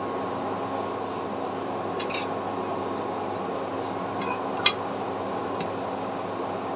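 Milk tea boiling in a pan on the stove: a steady hiss and hum, with a few faint ticks and a light clink about four and a half seconds in.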